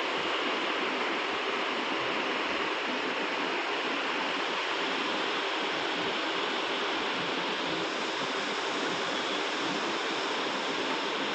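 A steady, even hiss with no other sound standing out.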